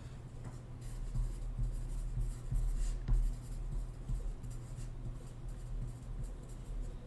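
Pen scratching while writing, with a few light handling clicks, over a steady low hum.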